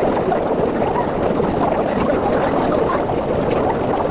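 Steady hubbub of a large crowd of runners talking at once, with no single voice standing out.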